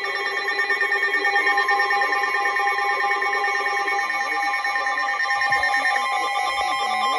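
NOAA Weather Radio alert tones: several steady tones sounding together, pulsing quickly. This is the attention signal that comes before a severe thunderstorm warning broadcast.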